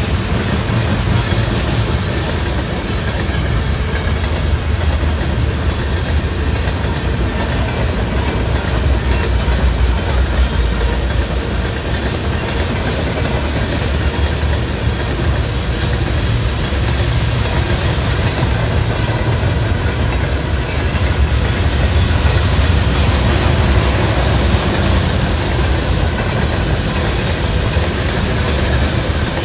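A train rolling past, its cars running steadily on the rails with a continuous heavy rumble.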